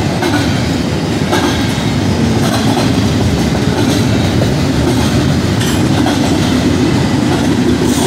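Double-stack container freight train passing the crossing: a steady loud rumble of the cars rolling by, with occasional sharp wheel clicks over the rail joints.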